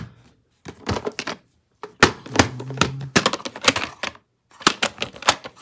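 Plastic VHS clamshell cases being handled and opened: a run of sharp plastic clicks, taps and knocks as the hinged case is snapped open and the cassette moved about.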